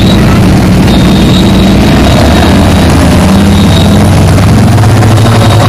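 Loud engine of a Formula Offroad buggy running under load at fairly steady revs as it climbs a steep dirt slope.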